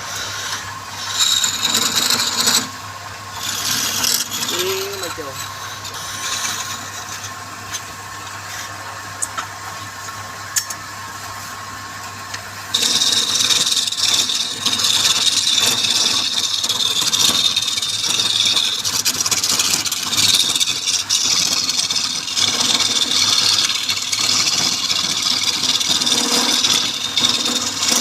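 Wood lathe running with a tool scraping against the spinning wood in short passes. About halfway through, a louder continuous rasping cut with a high whine starts and keeps going.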